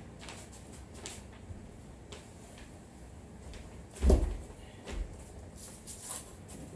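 Scattered light knocks and clicks of things being handled, with one louder thump about four seconds in and two smaller knocks after it.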